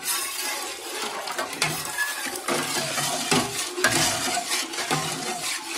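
A metal ladle stirring agar-agar liquid in an aluminium pot to dissolve the sugar just added: irregular scraping and clinking against the pot with sloshing liquid.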